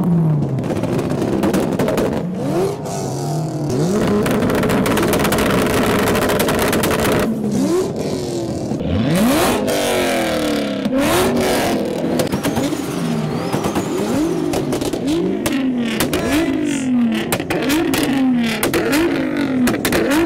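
Several tuned performance cars revving at once in a rev battle: engines repeatedly blipped up and dropping back, overlapping, with many sharp cracks from the exhausts. Later on, one engine is revved in a quick regular series, about one rev a second.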